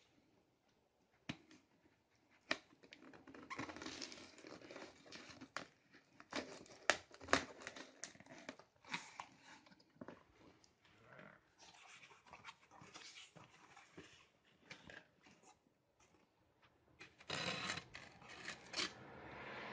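A cardboard shipping box being cut open with a folding knife and unpacked: scattered clicks and knocks as it is handled, and repeated scratchy rustling as the tape is slit and the flaps are pulled open. The loudest scraping comes near the end, as the knife works along the styrofoam inner box.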